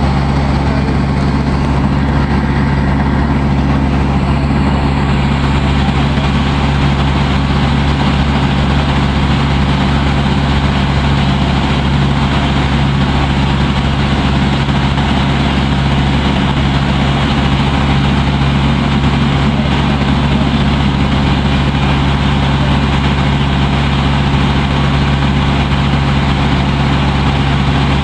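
Water taxi's boat engine running at a steady speed, heard on board: a loud constant low drone with an even hiss above it.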